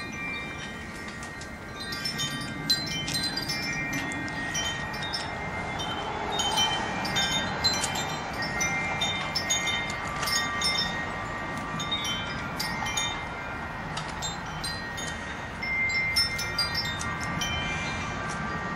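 Several overlapping metallic ringing tones, like chimes, with light metal clicks and a few sharper knocks as steel parts are handled.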